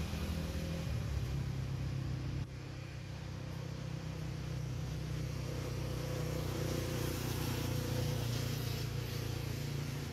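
A steady low engine hum, like a vehicle idling, with a brief dip about two and a half seconds in.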